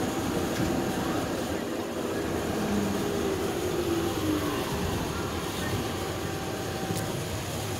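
Streetcar running, heard from inside the car: a steady rumble of motors and wheels on the rails, with a faint falling whine about three seconds in.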